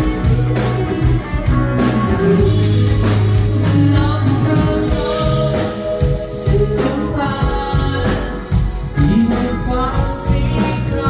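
Rock band playing live, with drums striking steadily under sustained guitar and bass.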